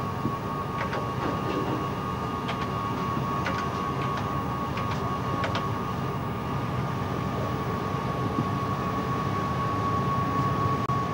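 Steady low rumble of the ship's machinery with a steady high tone held throughout, and scattered light clicks.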